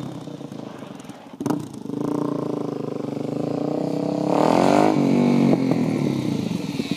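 Suzuki DR-Z400SM supermoto's single-cylinder four-stroke engine running as the bike rides off. There is a short throttle blip about a second and a half in, then the revs climb with a rising pitch at about four and a half seconds as the bike comes back toward the microphone and grows louder.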